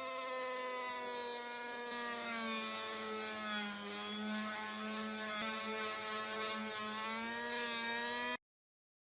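Small electric power tool running: a steady motor whine whose pitch wavers slightly as it works, cutting off abruptly near the end.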